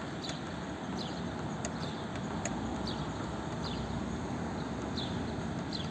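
Torx screwdriver being turned by hand to undo the screw that holds a car door's lock cylinder, giving faint clicks. Short high chirps come every half second to a second over a steady background hiss.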